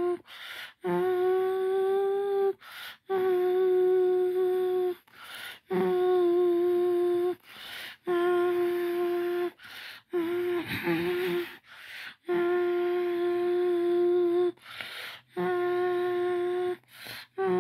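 A person humming one steady held note over and over, each note about two seconds long, with a quick sharp breath in between. Around the middle one note comes out breathier and rougher.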